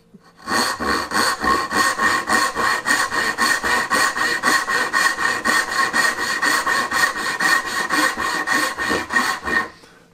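Dovetail backsaw cutting a tail line in a board by hand: quick, even push-and-pull strokes, several a second. It starts about half a second in and stops near the end.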